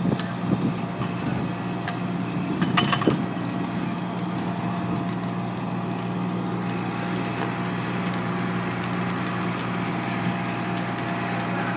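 Fire engine's diesel engine running steadily, a constant low drone. A few short clatters come in the first three seconds, the loudest about three seconds in.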